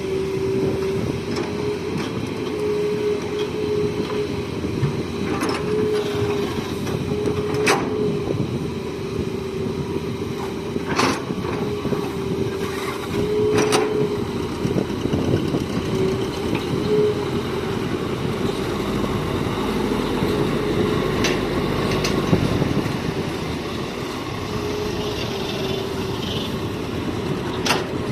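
Hitachi excavator's diesel engine running steadily with a wavering whine, with a few sharp knocks or clanks spread through it.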